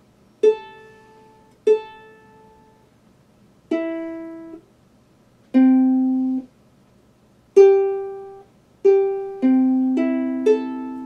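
Mandolin strings plucked one at a time to check the tuning, with a pause between notes. The first two plucks are at the same pitch and several notes are damped short. Near the end, a few strings are plucked in quick succession and left ringing together.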